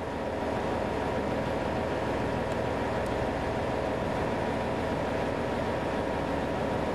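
Ultra-high-pressure water-jetting pump unit's engine running steadily, with a faint steady whine, before the jet is fired.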